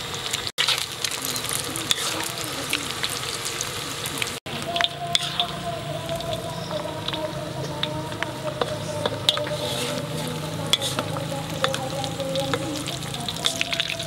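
Crickets deep-frying in hot oil in a wok: a steady sizzle with frequent sharp pops and crackles.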